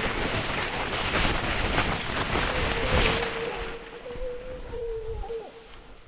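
Wind buffeting the microphone with rustling, loud for the first three seconds or so and then easing off. A faint steady tone runs underneath and stops shortly before the end.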